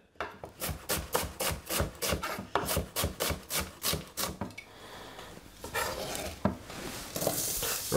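Knife chopping red onion on a wooden chopping board: quick, even strokes about five a second, then a few seconds of looser scraping and rustling near the end.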